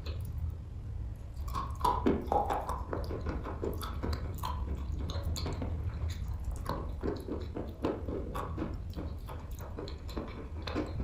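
Close-up chewing and crunching of wet chalk: irregular crunches and moist, squishy bites throughout, over a steady low hum.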